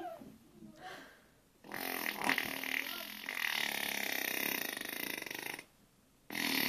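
A person making a long, rattling burp-like noise with their mouth, lasting about four seconds; after a short pause another starts near the end.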